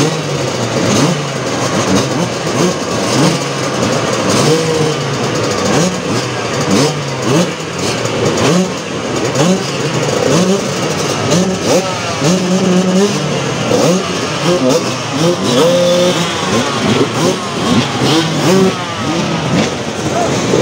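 Several vintage motocross motorcycles racing, their engines revving, several at once, each rising and dropping in pitch over and over.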